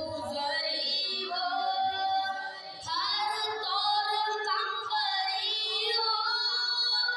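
A boy's solo voice chanting an Urdu devotional kalaam in long, held, ornamented phrases.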